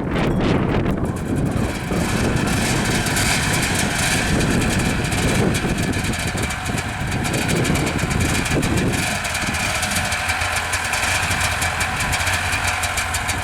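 Ski-Doo snowmobile engine running steadily, its lower tones thinning out about nine seconds in.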